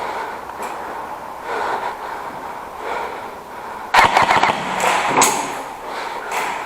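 Airsoft gun firing a rapid burst of shots about four seconds in, followed by a few more shots about a second later.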